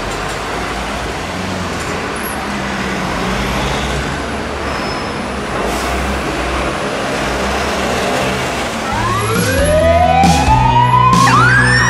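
Road traffic noise with a low engine rumble, then about three-quarters of the way through an emergency vehicle's siren starts up, a loud wail rising steadily in pitch.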